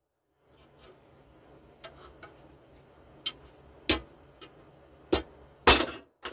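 Hammer striking a steel punch to peen over the rivets of a chainsaw bar's replacement sprocket nose tip: a few light taps, then three sharp metal blows in the second half, the last the loudest.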